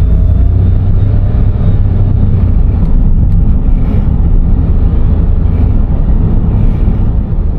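Honda N-BOX Custom Turbo (JF3) running, a steady heavy low rumble with faint thin tones above it. The abnormal noise it is recorded for is thought to be the whistling of the turbocharger's electric wastegate actuator.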